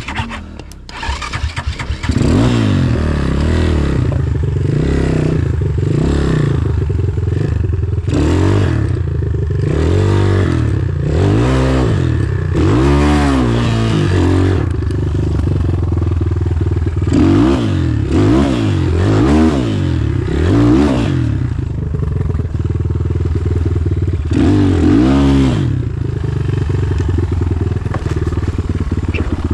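Enduro motorcycle engine revving up and down over and over, its pitch rising and falling with the throttle; it is quieter for the first couple of seconds, then loud.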